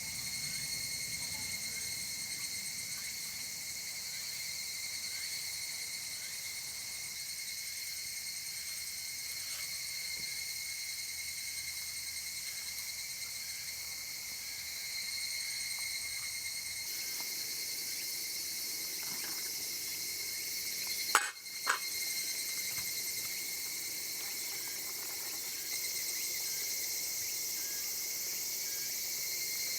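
Steady, unbroken chorus of summer insects, a continuous high-pitched drone. Two sharp clicks in quick succession about two-thirds of the way through.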